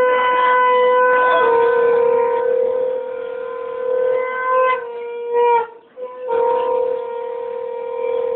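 Conch shells (shankha) blown in long, steady, loud blasts at one pitch. They break off for a breath about five and a half seconds in, then sound again.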